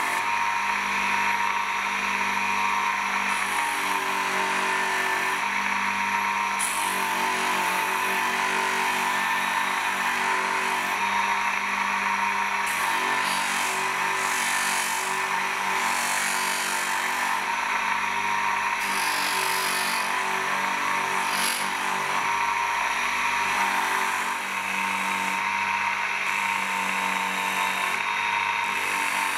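Electric bench polishing motor running steadily with a cloth buffing wheel, as polishing compound and then the steel hammer head are pressed against the spinning wheel; the hiss of the work on the wheel comes and goes over the steady motor hum.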